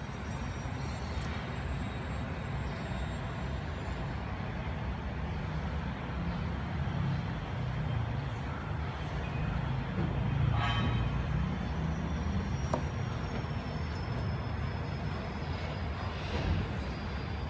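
Steady low rumble of background noise, with a brief higher-pitched sound about ten seconds in.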